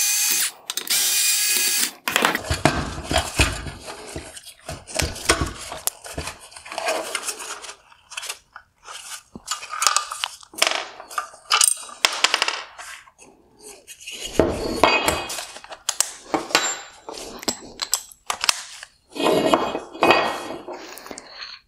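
Electric screwdriver with a T20 Torx bit spinning out screws in two short runs: one ends about half a second in, and the second runs for just over a second. Then comes irregular clatter and knocking as the plastic headlight frame and the finned aluminium LED projector unit are handled and set down on a wooden bench.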